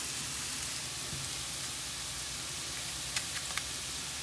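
Vegetables sizzling steadily while frying in a pan, with a few faint clicks a little after three seconds in.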